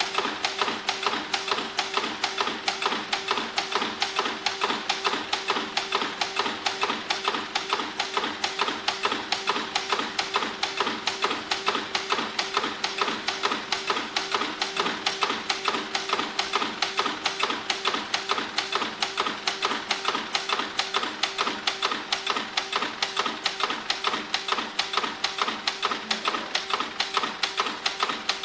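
Die-cutting press running a job: an even, rapid clatter of press strokes, about five a second, over a steady hum.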